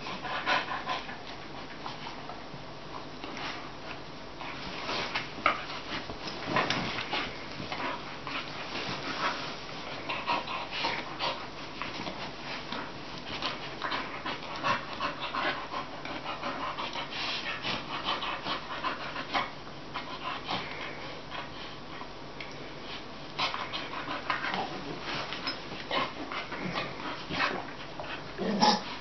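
Two English bull terriers play-biting and gnawing at each other's heads and necks, with heavy breathing and wet mouth noises in irregular short bursts.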